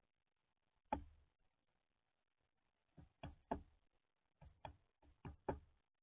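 Northern flicker pecking in a feeder tray, its bill knocking sharply against the tray. There is one loud knock about a second in, then a run of about eight quick knocks in the second half.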